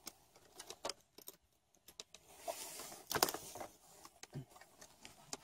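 Faint scattered clicks and a soft rustle of small gear being handled, the sharpest click about three seconds in.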